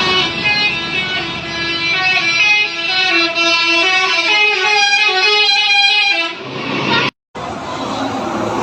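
A tour bus's basuri horn plays a tune of shifting pitched notes for about six seconds, then stops. Vehicle noise follows near the end.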